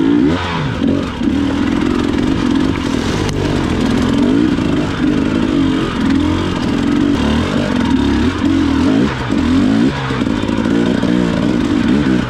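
Dirt bike engine revving up and down again and again as the bike is worked over rocks, with a few sharp knocks along the way.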